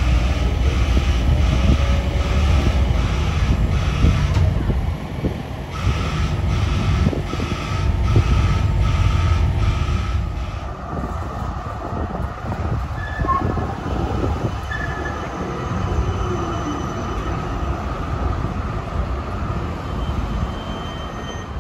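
Melbourne trams at a street stop. A low, steady rumble of a tram on the rails is loudest for about the first ten seconds, then eases off into quieter tram and street sound, with a few short high squeaks.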